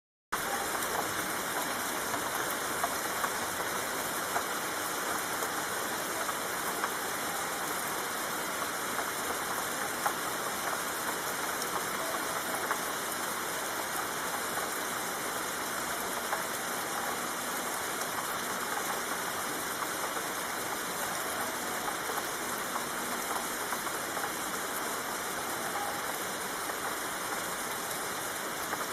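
Steady rain falling: an even hiss with scattered drops ticking, cutting in suddenly out of silence just after the start.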